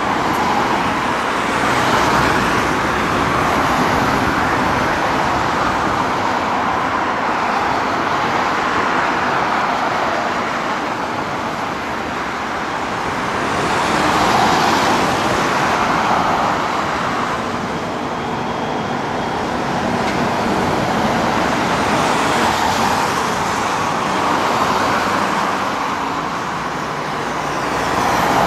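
Steady rushing noise of distant vehicles, swelling and fading every few seconds.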